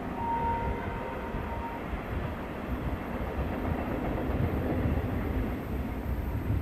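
A pair of 422 class diesel-electric locomotives running as they haul a train of oil tank wagons, a steady low rumble from their EMD two-stroke V16 engines. A thin, steady high tone sounds for about a second and a half near the start.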